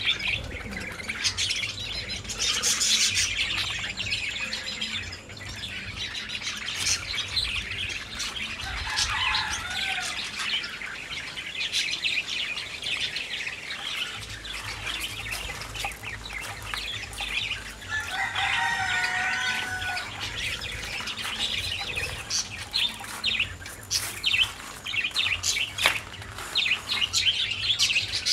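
Birds chirping and twittering continuously, with a couple of longer pitched calls, one about nine seconds in and another around eighteen to twenty seconds.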